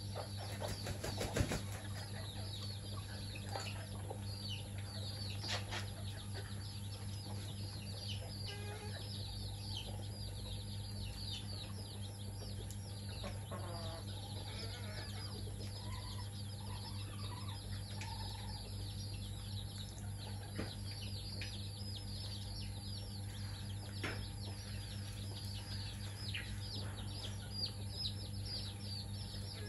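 Domestic chicks peeping constantly in short, falling high chirps, with a brief flurry of chicken wing flapping about a second in and a few low clucks from the hen near the middle. A steady low hum runs underneath.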